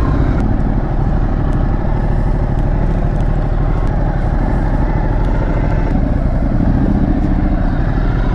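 Ducati motorcycle engine running steadily at low speed under the rider, its low even pulsing heard from the saddle.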